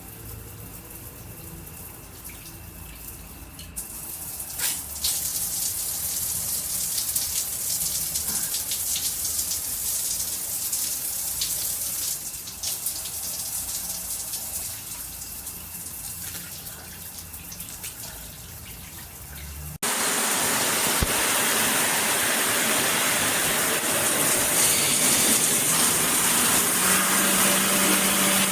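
Water spraying steadily from a shower head, a continuous hiss that jumps abruptly louder and brighter about twenty seconds in. A faint steady hum joins near the end.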